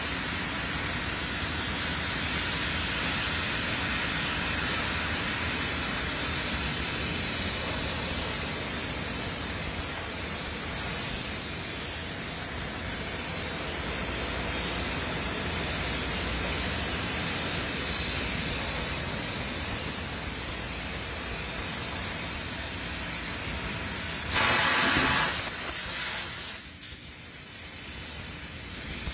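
Steady hissing machine noise in a metalworking factory, with a louder rush of hiss for about two seconds near the end.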